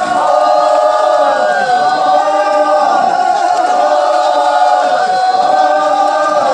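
A large group of voices singing a chant together in long held notes, each phrase ending in a falling glide about every two seconds.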